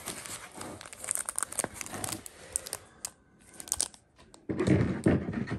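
Foil booster-pack wrappers crinkling and rustling as a stack of packs is handled and shuffled, with a louder stretch of rustling near the end.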